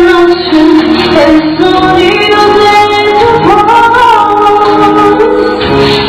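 A woman singing into a microphone, holding long notes, with a rise in pitch a little past halfway through.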